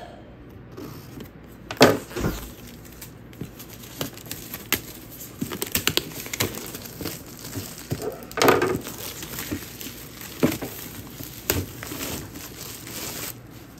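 Clear plastic shrink wrap crinkling and tearing as it is slit and peeled off a cardboard box. Irregular rustling is broken by sharper crackles, the loudest about two seconds in and again past the middle.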